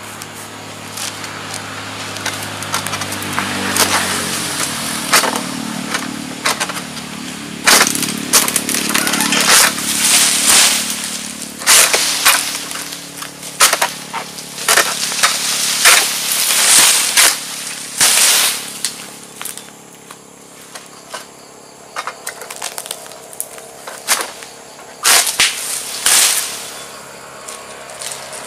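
Long-pole palm harvesting sickle (egrek) hacking and pulling through an oil palm frond stalk: a long series of irregular sharp cuts and cracks with rustling of the frond in between.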